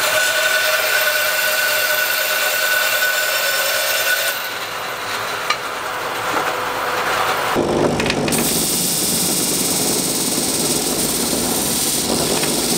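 Bandsaw running with a steady whine as its blade cuts through wood pieces. About eight seconds in, the sound changes to a disc sander running, with a rougher hiss as a board is pressed against the sanding disc.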